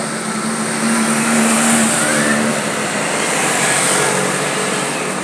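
Motor traffic going by: engine hum and road noise that grows louder about a second in and eases off near the end.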